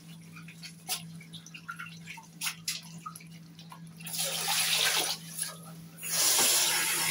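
Kitchen tap water running in two bursts of about a second each, the second longer, while rice is being rinsed; faint scattered clicks come before.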